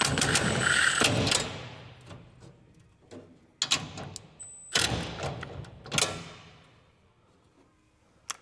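A power tool driving a bolt runs steadily and stops about a second in. A few sharp metal clanks and knocks follow as the hardware is handled.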